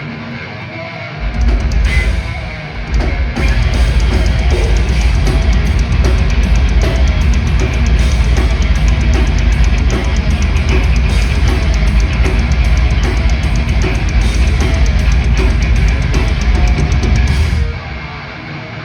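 Heavy metal band playing live: distorted electric guitars, bass and drum kit. It starts thinner, the full band with heavy bass comes in about a second in with fast, dense drumming, then it drops back shortly before the end.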